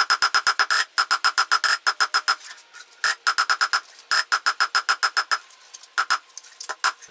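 Hand hammer striking red-hot leaf-spring steel on an anvil in runs of rapid blows, each ringing brightly. The hammering pauses about two and a half seconds in and again near five and a half seconds, with a few lighter strikes near the end.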